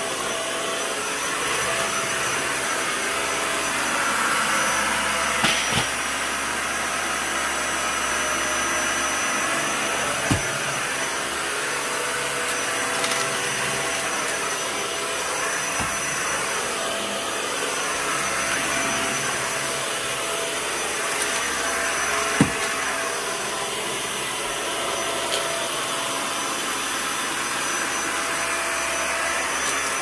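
A Dyson Ball upright vacuum cleaner runs steadily as it is pushed back and forth over carpet: a continuous rush of air with a faint high whine. A few sharp clicks come through, the loudest about ten seconds in and again past twenty seconds.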